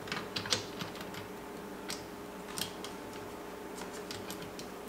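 Light metal clicks and taps as small shift-drum parts are handled and seated on an aluminium YZ250 two-stroke crankcase half, a cluster in the first second and then a few scattered ones, over a faint steady hum.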